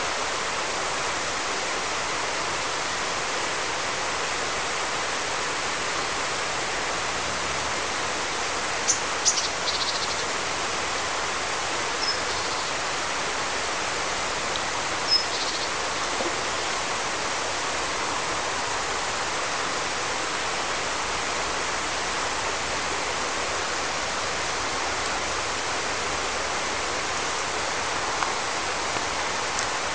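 Steady rush of flowing river water over a rocky bed, with a few brief high chirps about a third and halfway through.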